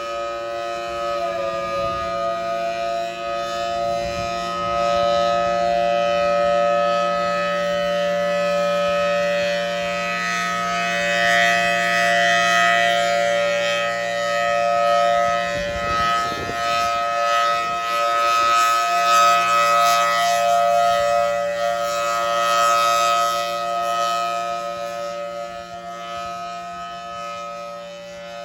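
Outdoor warning siren sounding a steady alert tone: several pitches held together as one chord, with no rise or fall in pitch, while the loudness swells and fades.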